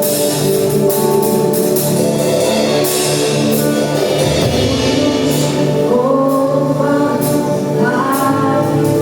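A band playing gospel worship music, with a group of voices singing together over instruments and a drum kit.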